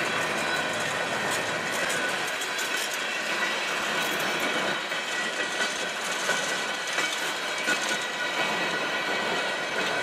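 Freight train covered hopper cars rolling past: a steady rush of steel wheels on rail with scattered clicks over the rail joints and a thin steady squeal.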